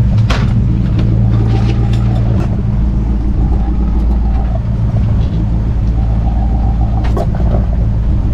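Fishing boat's engine running steadily under way, a low drone, with a few short knocks and clatters on board.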